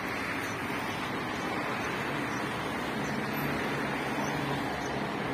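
Steady hum of distant road traffic, with no single event standing out.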